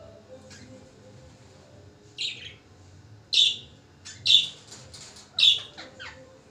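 Parrots calling: four loud, sharp calls about a second apart starting about two seconds in, with quicker, softer chirps among them.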